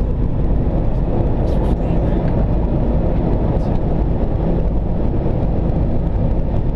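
Steady low rumble of an Airbus A380 in flight heard from inside the cockpit: airflow and engine noise at an even level.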